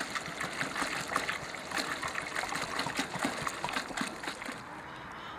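Goat's milk poured from a plastic jerrycan through a cloth strainer into a metal pot, splashing and trickling steadily; the pour dies away near the end.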